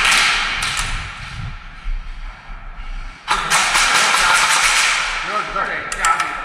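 Airsoft electric rifles firing rapid rattling full-auto bursts, a short one at the start and a longer one from about three to five seconds in, with indistinct voices near the end.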